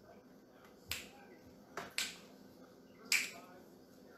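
Finger snaps: three sharp single clicks, roughly a second apart.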